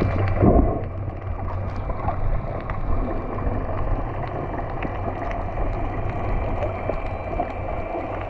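Muffled underwater sound picked up by a camera below the surface: water rushing and bubbling over a steady low hum, with small scattered clicks. There is a louder gush of water about half a second in.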